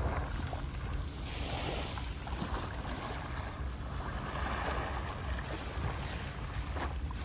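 Small waves lapping and washing onto a sandy shore, with a brighter wash about a second in. Wind buffets the microphone as a steady low rumble underneath.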